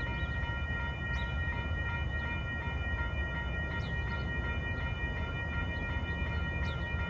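Railroad grade-crossing warning bell ringing in rapid, even strokes over a low, steady rumble.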